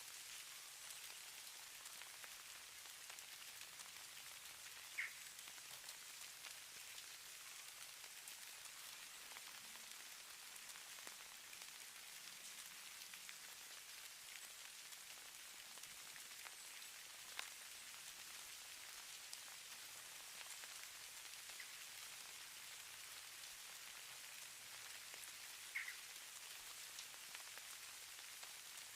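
Faint, steady hiss of falling snow, much like fine rain, with three brief ticks spread through it.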